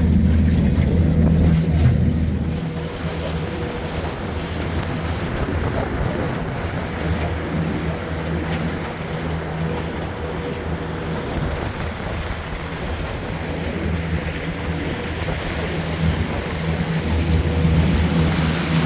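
A boat's motor running under way, with wind buffeting the microphone and the wash of water. The engine hum is strong for the first couple of seconds, drops back through the middle and rises again near the end.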